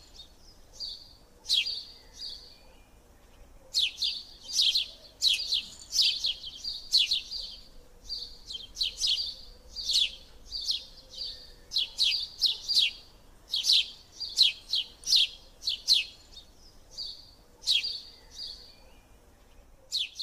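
A bird chirping: repeated short, sharp, high chirps in quick runs with brief pauses between them.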